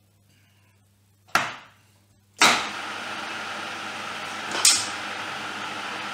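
Milling machine switched on: a sharp knock, then a louder clunk as its motor starts and runs on with a steady, even noise, with one short click about two seconds later.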